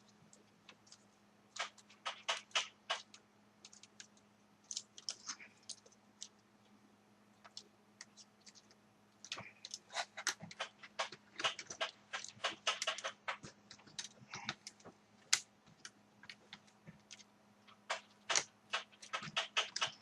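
Irregular clusters of small plastic clicks and rattles from a laptop's casing parts and cables being handled and fitted together, over a faint steady low hum.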